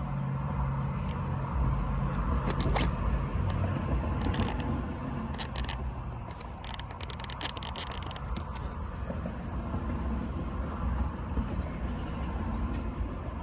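Stubby ratchets and their packaging being handled: scattered clicks, then a quick run of clicks in the middle, over a steady low rumble.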